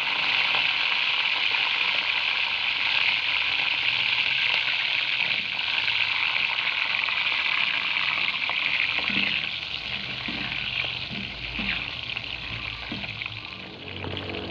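Tomato slices, shallots and garlic cloves sizzling steadily in hot oil in a wok, being fried until half-cooked.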